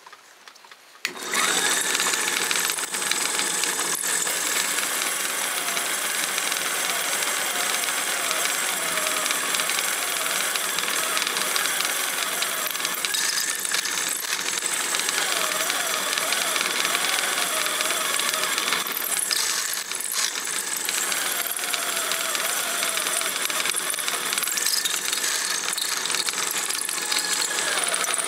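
Drill press running with a bit boring into a block of aluminium, starting about a second in and going on steadily, with a wavering whine from the cut.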